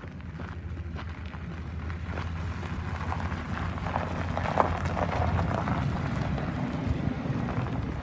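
The 5.7-litre V8 of a 1990 GMC Sierra K1500 pickup idling steadily, with footsteps crunching on gravel close by, loudest around the middle.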